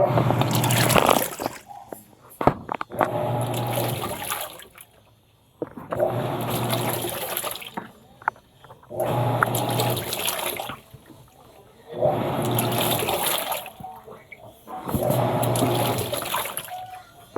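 Panasonic top-loading washing machine agitating a blanket in water on its blanket cycle. About every three seconds the motor hums through a stroke of roughly a second and a half and the water sloshes, then there is a short pause.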